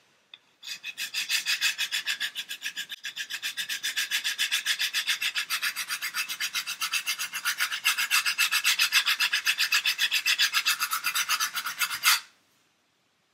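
Coarse-grit sanding block rubbed rapidly back and forth along the edge of a model ship's false keel, an even rhythmic rasping of several strokes a second as it takes material off quickly to bevel the bow. The sanding stops suddenly about a second before the end.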